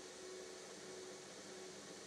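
Drill press running with a sanding pad in its chuck, a wooden box held against the spinning disc: a steady motor hum over an even hiss.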